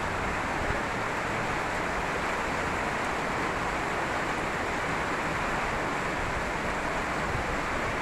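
Heavy rain pouring steadily onto a tiled patio and potted plants: a dense, even hiss that does not let up.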